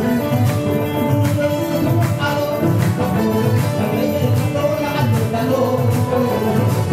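Upbeat dance music with a steady, evenly spaced drum beat under a melody line.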